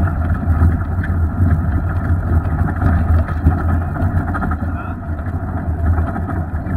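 Off-road vehicle's engine running at a steady low drone while driving slowly over a rocky dirt trail.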